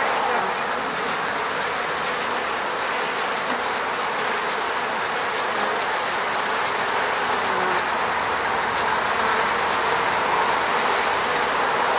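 Honey bees buzzing around their hive: a dense, steady hum, with the short buzz of single bees flying past now and then.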